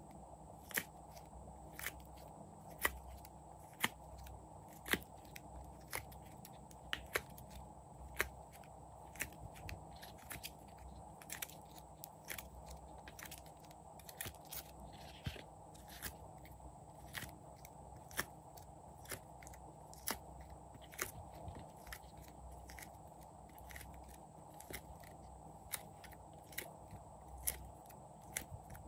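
Small crisp clicks and pops, about one a second at uneven spacing, as small cubes are pushed out of a silicone mould and dropped onto slime. A faint steady hiss lies underneath.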